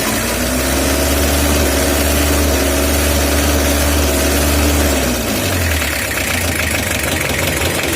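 Diesel engine of a 1985 Toyota Hiace pickup revved up for about five seconds, then settling back to idle. It picks up the throttle late and stumbles as if about to die, like a diesel short of fuel, a fault that the mechanic traces to a worn rotary injection pump.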